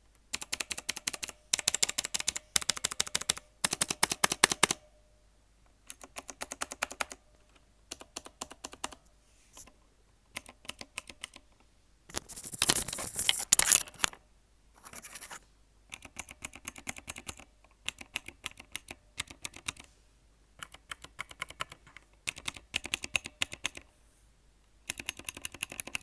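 Mechanical keyboard with clicky Outemu Blue switches and thick homemade resin keycaps being typed on in quick runs of key presses, each run about a second long with short pauses between. The thick resin caps make it quieter than it should be. About halfway through comes a louder, denser flurry of presses.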